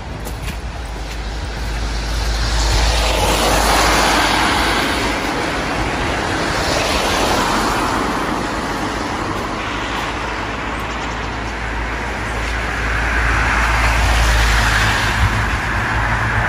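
Road traffic going past on wet, slushy streets: a hiss of tyres that swells as vehicles pass, loudest a few seconds in and again near the end, over a steady low rumble.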